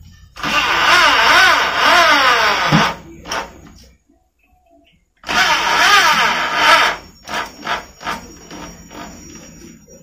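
Corded electric drill driving screws through metal wall brackets into a concrete wall, run in two bursts of roughly two and a half and one and a half seconds, its motor pitch wavering and falling within each run. A few sharp clicks and knocks follow.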